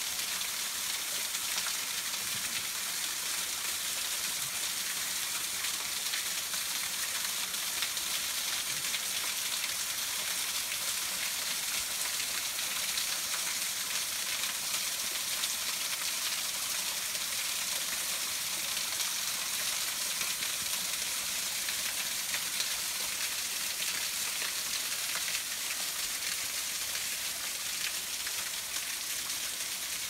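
Thin mountain waterfall pouring down a rock face and splashing onto stones and a shallow pool below: a steady, even hiss of falling water.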